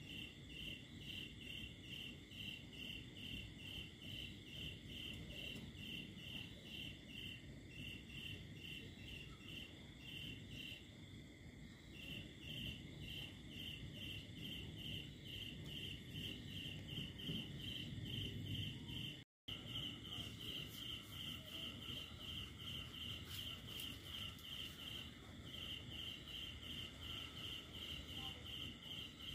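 Cricket chirping in an even run of short pulses, about three a second, with a few brief pauses. The sound cuts out completely for a moment a little past the middle, over a faint low background rumble.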